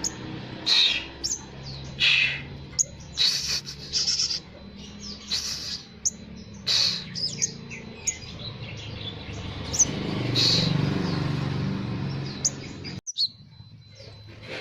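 Olive-backed sunbird singing a fast, jumbled run of sharp high chirps and trills over a low background hum. The song breaks off abruptly near the end, leaving a thin steady high tone.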